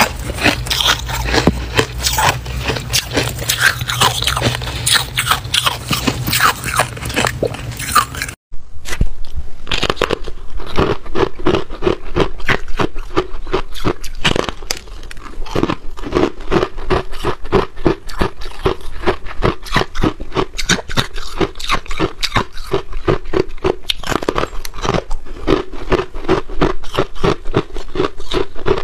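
Freezer frost crunching and scraping, with a steady low hum beneath, for about the first eight seconds. After a sudden break, a long run of loud, quick crunches as chunks of packed freezer frost are bitten and chewed.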